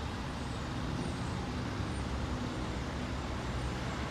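2006 Orion V diesel transit bus's engine running steadily, with a low even drone and road noise.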